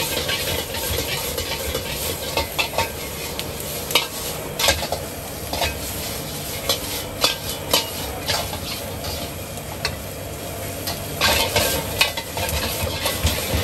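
Wok stir-frying over a high gas flame. The food sizzles in the wok, and a metal ladle scrapes and knocks against the wok in quick, irregular strokes.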